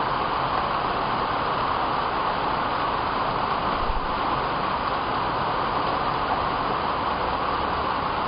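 Steady, even background hiss with no bird calls, typical of a security camera's microphone picking up outdoor ambience.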